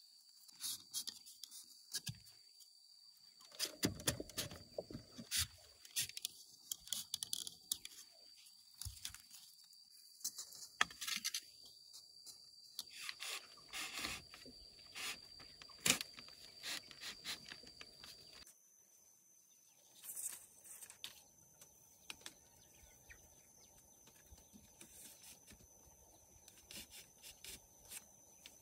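Bamboo slats and poles being handled for a fence: scattered sharp knocks and clicks of bamboo on bamboo, with scraping and rubbing as slats are set and tied. The knocks are frequent and loud in the first part, then fainter and sparser after about 18 seconds.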